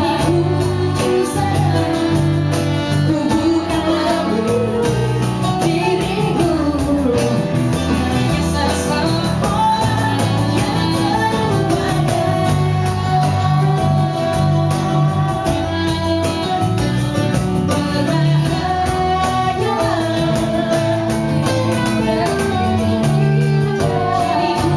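Live band playing a pop song: two women singing into microphones over electric guitar, with a low bass line under the voices.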